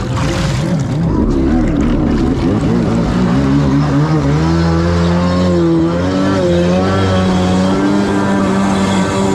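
Two-stroke twin engine of a Kawasaki 650 stand-up jet ski, climbing in pitch as it accelerates a few seconds in and then holding a steady high rev at speed on a speed-test run. Water spray rushes along the hull.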